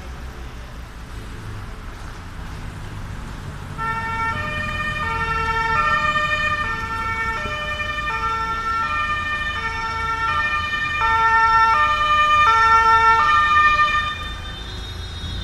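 Police vehicle two-tone sirens start about four seconds in, switching between a high and a low note roughly once a second. They are loudest near the end, then drop away. Under them is a low, steady rumble of vehicle engines.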